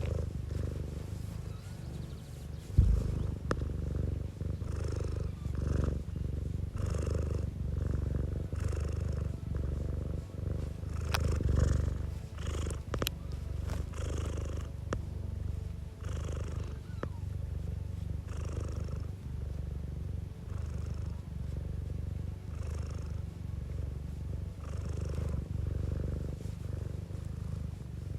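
Domestic cat purring steadily close to the microphone, the purr swelling and easing with each breath about once a second. A single thump about three seconds in.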